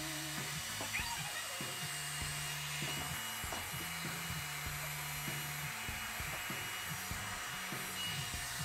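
Handheld hair dryer running steadily, a constant rushing blow with a faint motor whine, used to heat hard rubber toy tires so they soften enough to slide onto the wheels.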